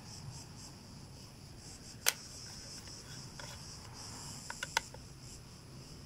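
Sharp clicks of a hand tool against the motorcycle engine: one about two seconds in, then three in quick succession near five seconds, over a faint steady high hiss.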